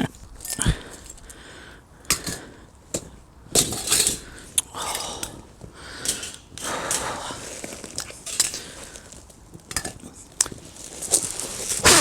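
Metal cooking gear clinking and knocking: a string of irregular sharp clicks and clatters, with quieter handling noise between them.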